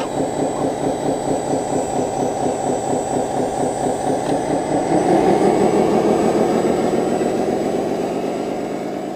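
Simulated diesel engine from an RC construction model's electronic sound module, running steadily at idle with an even pulse. It gets louder about five seconds in, then fades away toward the end.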